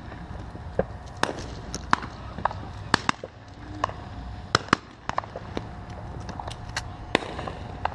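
Scattered shotgun shots from hunters around the dove field: a dozen or more sharp pops at irregular intervals, some louder and others fainter, over a low steady background noise.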